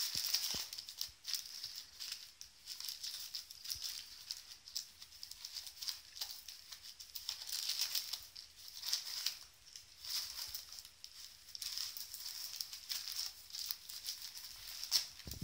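A dog chewing and tearing at a piece of white paper wrapping, the paper crinkling and rustling in quick, irregular bursts.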